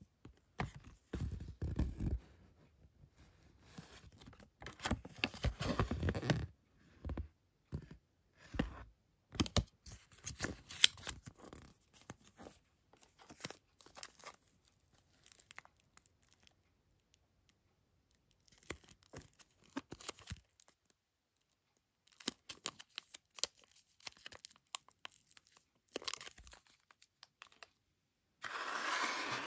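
Packaging for a small model being opened and handled: paper and plastic tearing and crinkling in irregular bursts, with small clicks and scrapes and a couple of short pauses.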